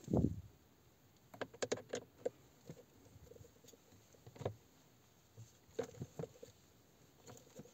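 A dull thump, then faint scattered clicks and ticks: a T20 Torx screw being loosened with a screwdriver and turned out by hand from the plastic steering-column shroud.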